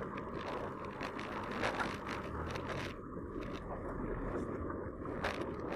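Bicycle riding noise picked up by a handlebar-mounted camera: a steady rumble of tyres on wet pavement, with small clicks and rattles from the bike.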